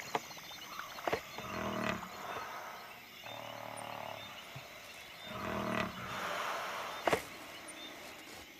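Sleeping African elephants snoring: three slow, low snores, each lasting about a second, with a few sharp clicks between them.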